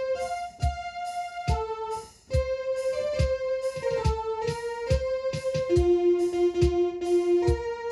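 Electronic home keyboard organ playing a slow melody of held notes over a steady low beat, about one beat a second, with a brief break a little after two seconds in.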